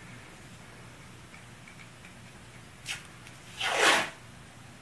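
Blue painter's tape being pulled off the roll: a brief rip about three seconds in, then a louder, longer rasping pull lasting about half a second near the end.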